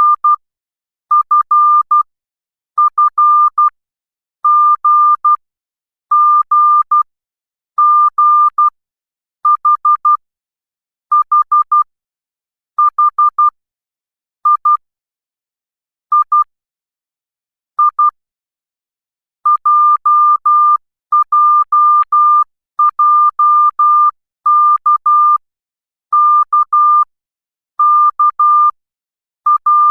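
Morse code characters keyed as a single steady beep tone: each character is a short group of short and long beeps (dits and dahs), with a silent gap between characters, about one character every second and a half to two seconds.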